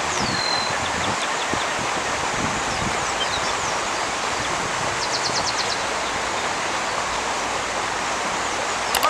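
Steady rushing outdoor noise, like wind or moving water. A faint falling high chirp comes at the start, a short rapid run of high ticks about five seconds in, and a brief sharp tick near the end.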